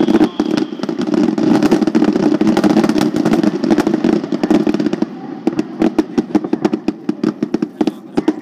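Fireworks display: a dense barrage of aerial shell bursts merging into a continuous rumble, thinning after about five seconds into rapid separate bangs and pops.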